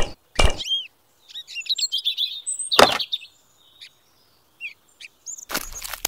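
Miniature clay bricks clicking as they are set down on a cement slab: two sharp knocks at the start and one about three seconds in, with small birds chirping in between. Near the end, a rough, gritty scraping of a mini trowel working cement mortar.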